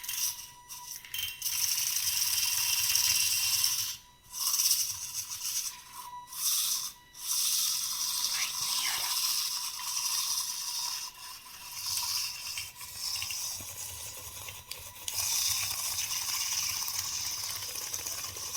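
A rattling, scraping mechanical noise in several stretches, with short breaks about four and about six seconds in.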